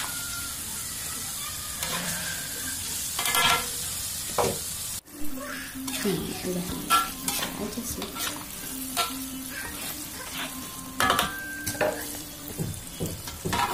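Battered shrimp deep-frying in a wok of hot oil, sizzling steadily, while a metal spatula scrapes and knocks against the wok as the pieces are stirred. The sound cuts out briefly about five seconds in.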